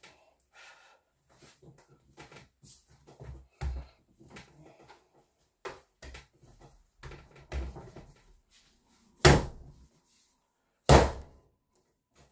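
Sourdough bread dough kneaded by hand on a countertop: scattered soft thumps and rustles, then two loud slaps under two seconds apart near the end as the dough is slammed down on the counter.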